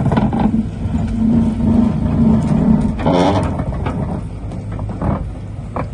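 Hyundai Robex 140 LCD-7 excavator's diesel engine running under hydraulic load, its note strongest for the first three seconds. A short metallic rattle comes about three seconds in, with a few sharp knocks after it.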